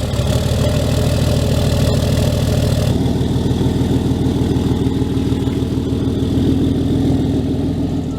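The 6.7L Cummins inline-six turbo-diesel in a 2008 Dodge Ram 3500 idles steadily just after starting; its note shifts about three seconds in.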